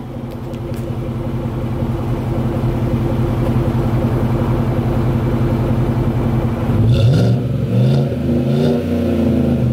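Chevrolet Silverado pickup engine idling steadily through a Magnaflow muffler, with stock headers and catalytic converters still in place. About seven seconds in it is revved twice, the pitch rising and falling each time. It has a mild exhaust note that the owners find too quiet.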